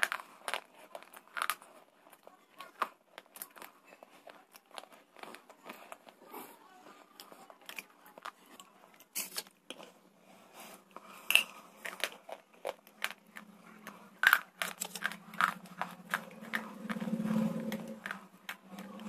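Slate bars being bitten and chewed close to a microphone: irregular sharp crunches and clicks, a few of them loud. A low hum rises under the crunching near the end.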